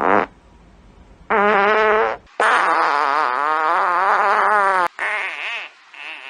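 Fart sound effects, one after another: a short one at the start, a second lasting about a second, then a long one of about two and a half seconds with a wavering pitch, followed by two weaker, fainter ones near the end.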